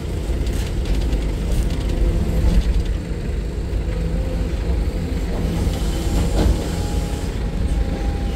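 Excavator's diesel engine running steadily, heard from the operator's cab, with a few faint clicks in the first two seconds.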